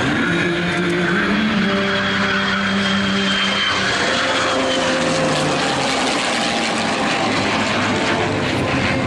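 Propeller airplane engine running steadily in flight, its pitch dropping a little about halfway through.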